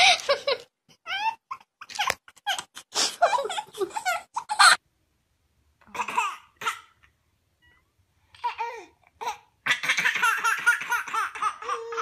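Babies' short squeals and babbling, then after a lull, from about ten seconds in, a baby laughing hard in a long run of quick, high-pitched laughs.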